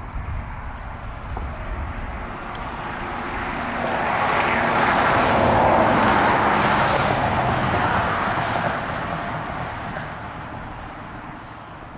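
A passing vehicle's engine and road noise swelling to a peak about halfway through and then fading away.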